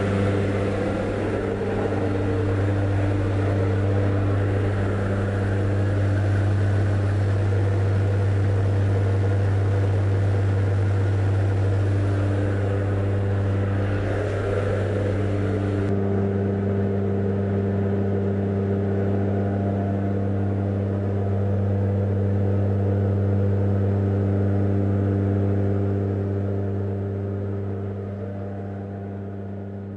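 Steady drone of a jump plane's engines and propellers heard from inside the cabin, a low hum with a constant pitch. The hiss over it drops away abruptly about halfway through, and the drone fades a little near the end.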